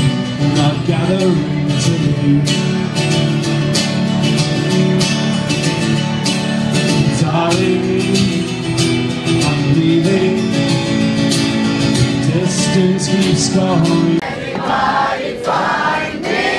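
Live acoustic guitar strummed in steady chords with singing, amplified through a PA. The strumming stops abruptly about fourteen seconds in, and voices carry on singing without it.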